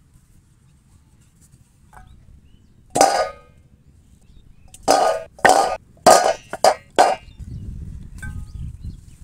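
Stainless steel bowl knocked and clanging: one ringing clang about three seconds in, then a quick run of five more about two seconds later.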